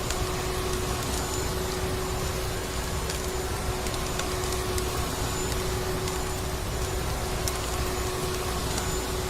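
Vacuum cleaner running steadily, a constant whooshing drone with a steady hum, layered with the crackle of a wood fire: small sharp pops scattered through it.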